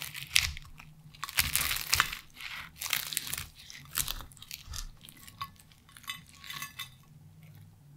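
Knife and fork cutting open a baked steak pie's crisp pastry crust on a ceramic plate: a run of irregular crunches and crackles that thins out near the end.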